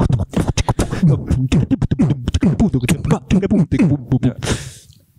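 A man beatboxing into a microphone cupped in his hands: a fast rhythm of sharp clicks and hits over a pitched vocal line, ending near the end on a long hiss.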